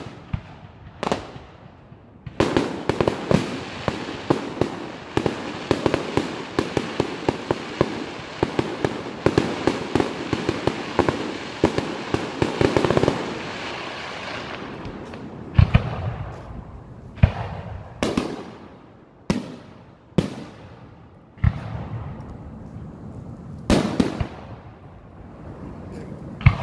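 Aerial fireworks display: a dense run of rapid crackling pops for about ten seconds, then single shell bursts every second or two, each booming and trailing off in an echo.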